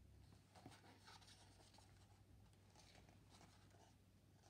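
Near silence with faint paper rustles of a picture book being held and handled, a few soft scrapes scattered through the quiet.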